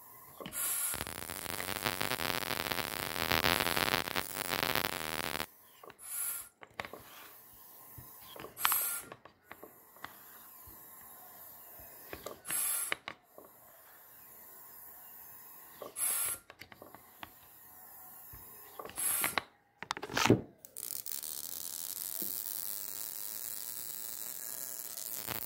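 Homemade flyback-transformer high-voltage supply buzzing as it drives a purple glow discharge in an evacuated glass jar. A dense buzz for the first few seconds, then short bursts every few seconds, and a steady hiss near the end.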